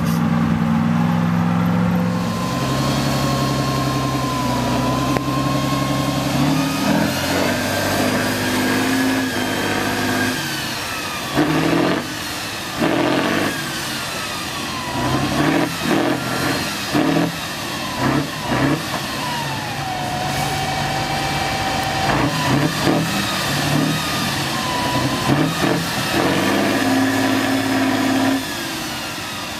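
Heavy off-road trial trucks' diesel engines working hard on a steep slope. The engine runs steadily at first, then from about ten seconds in it is revved in many short surges, with a whine that rises and falls.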